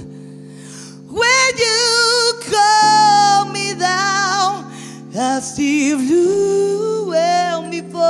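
Female lead vocalist of a funk-soul band singing long, held notes with vibrato over sustained backing chords in a quiet passage of a live song. The voice enters strongly about a second in after a soft start.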